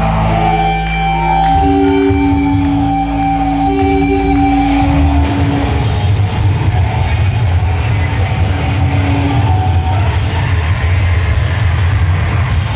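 Live heavy rock band playing loud: distorted electric guitar and bass hold long sustained notes over the drum kit, and about five seconds in the cymbals open up into a dense full-band wash.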